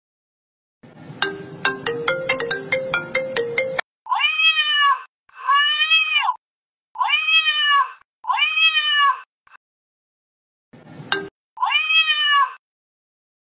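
A short electronic tune with quick clicking notes lasts about three seconds, then recorded domestic cat meows play from a fake-call app: four meows in a row, each about a second long and rising then falling in pitch, then a short blip and one more meow near the end.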